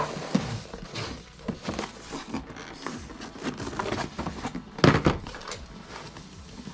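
Irregular knocks, taps and light clatter of objects being handled, with a sharper knock about five seconds in.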